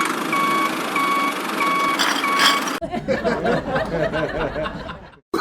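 Vehicle reversing alarm beeping at an even pace, about one and a half beeps a second, over a steady machine hum. It cuts off suddenly about three seconds in and gives way to a wavering, voice-like sound.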